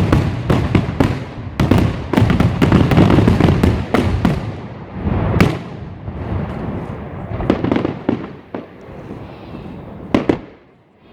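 Fireworks going off: a dense run of bangs and crackling for the first few seconds, then fewer, more widely spaced bangs, with one last loud bang near the end.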